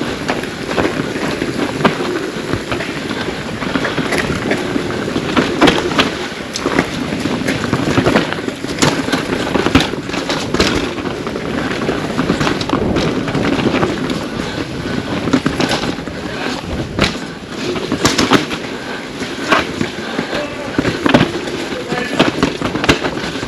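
Pivot Firebird 29 full-suspension mountain bike descending a rough trail: tyres rolling over dirt and rocks, with many irregular sharp knocks and clatter from the bike over the bumps.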